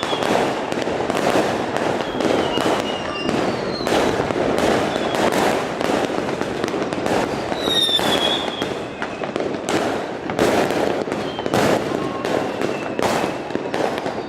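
Fireworks display: rapid, continuous bangs and crackling several times a second, with a few whistles falling in pitch among them.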